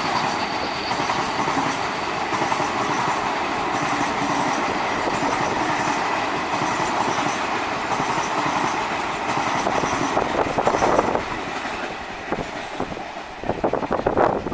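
Passenger train coaches rolling past on the track: a steady rush of steel wheels on rail with a faint high wheel squeal. About ten seconds in comes a quick run of clacks over the rail joints, and then the sound drops away.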